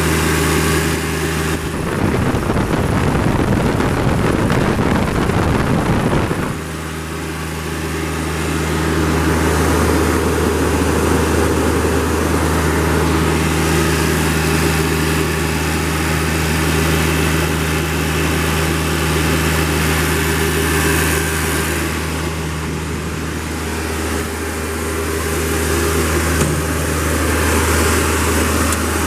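Toro Reelmaster 5200D mower's diesel engine idling steadily. A rushing noise partly covers it for about five seconds near the start.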